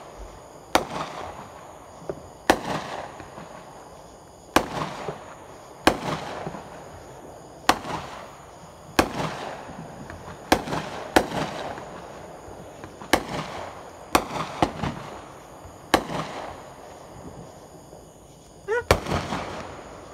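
Aerial fireworks shells bursting one after another: about a dozen sharp bangs, one every second or two, each trailed by an echoing rumble. Near the end a short rising whistle comes just before a burst.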